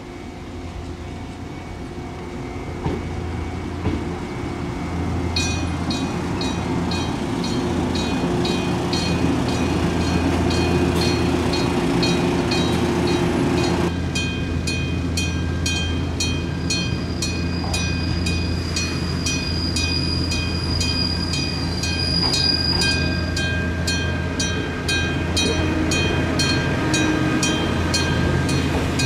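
A Japanese level-crossing warning bell rings in a fast, even ding, about two to three strokes a second, starting about five seconds in. Under it runs the steady hum of a red Fujikyu express train pulling in alongside the platform.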